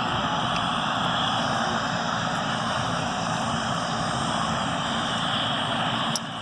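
Spokane Sheriff's helicopter running, with a steady, loud noise from its rotor and turbine. The sound drops briefly just before the end.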